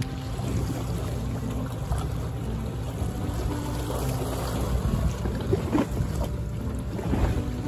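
Steady low rumble of wind buffeting the microphone, with a few faint knocks in the second half.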